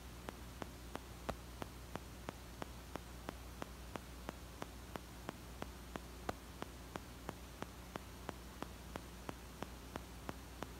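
Regular ticking, about three sharp clicks a second, over a steady low hum and hiss.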